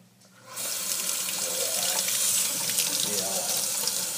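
Kitchen faucet turned on about half a second in, water running steadily into a stainless steel sink.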